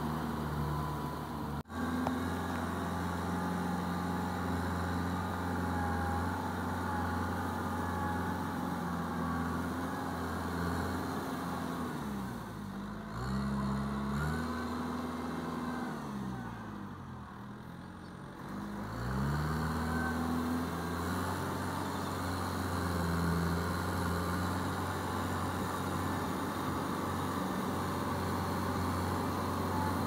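Kubota tractor's diesel engine running under load as it ploughs a flooded paddy field. About halfway through, its speed drops and climbs back up twice before settling to a steady run again.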